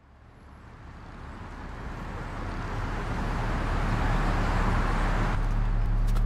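A rushing wash of noise fades in from near silence and swells steadily louder over about five seconds. Near the end it gives way to a low, steady, pitched drone as the music-video intro begins.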